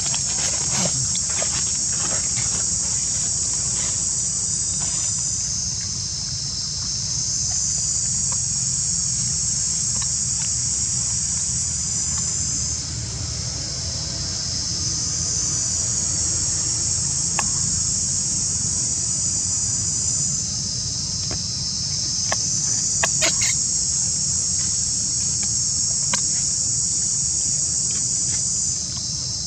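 Insects calling in a loud, high-pitched chorus that swells and fades in long waves every several seconds, over a low steady rumble.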